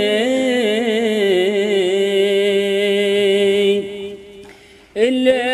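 A single voice singing a line of an Arabic qasida unaccompanied, holding one long ornamented note that wavers and slides down in pitch. The note breaks off near the end, and the next phrase begins about a second later.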